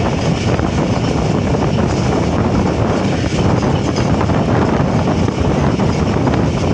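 Passenger train running at speed, heard from an open window of the moving coach: steady rumble of wheels on the rails with wind buffeting the microphone.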